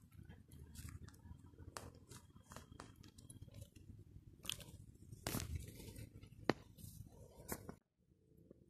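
Scattered clicks and light crunches over a low steady rumble: phone handling noise and footsteps while walking a small dog on a leash. The sound drops out briefly near the end.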